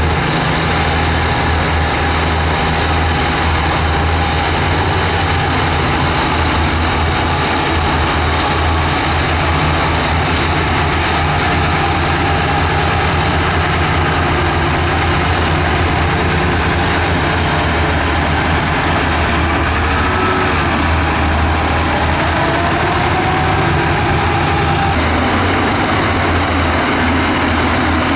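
Heavy diesel engine of an earthmoving machine running steadily, with faint higher whines rising and falling in pitch in the second half.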